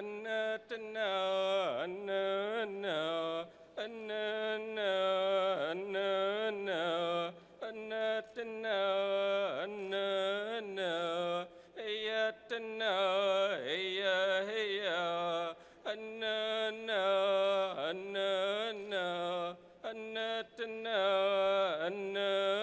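A man singing a Hoopa prayer song alone and unaccompanied, in short repeated phrases that slide down in pitch between them.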